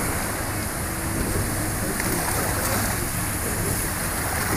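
Steady rushing noise of wind and sea around a small boat, with the low, even hum of the boat's motor underneath.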